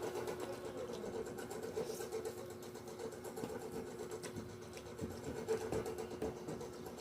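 A steady mechanical hum, like a small electric motor running, with faint scattered clicks over it.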